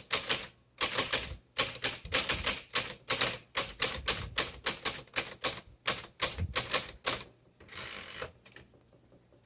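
Smith Corona Electra 210 electric typewriter being typed on, with rapid key strikes, several a second, that stop about seven seconds in, followed by a brief rushing sound about a second later.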